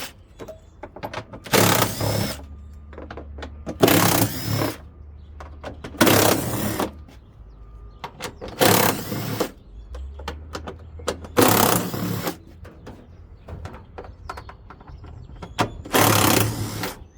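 Impact driver with a socket extension running in short bursts, about six of them a couple of seconds apart, as it backs out the bolts that hold a front-load washer's two plastic tub halves together.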